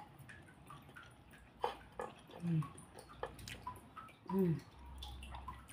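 Close-up wet mouth sounds of a person eating: chewing and small lip smacks, with two short hums about two and a half and four and a half seconds in.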